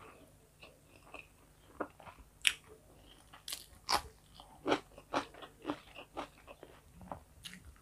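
Raw cucumber slice being bitten and chewed close to a clip-on microphone: crisp crunches that start about two seconds in, the loudest first, then a run of them about twice a second.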